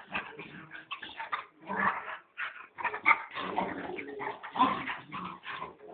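Puppies play-fighting, giving a quick, irregular run of short yips, whimpers and small barks.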